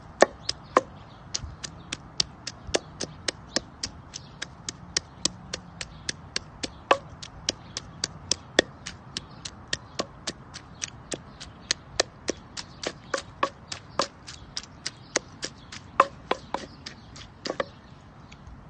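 Knife chopping vegetables in quick, even strokes, about three a second, stopping shortly before the end.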